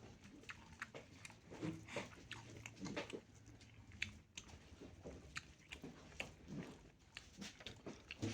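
A person chewing and eating close to the microphone: faint, irregular mouth clicks and smacks.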